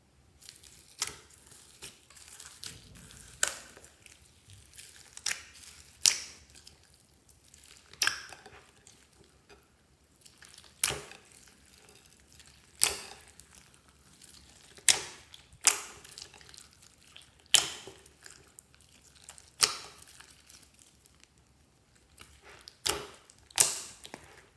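Clear slime being kneaded and pressed by hand, giving a series of sharp pops and crackles, roughly one every second or two.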